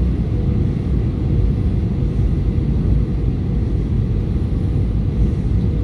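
Jet airliner cabin noise on approach: a steady low rumble of the engines and rushing air, with a faint steady tone running through it.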